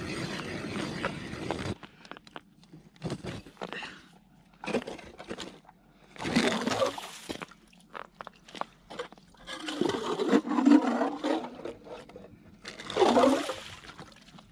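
Hand-cranked ice auger grinding steadily through lake ice, stopping abruptly about two seconds in as it breaks through. Then come several separate bursts of water sloshing and gurgling in the new hole as the auger is worked up and out.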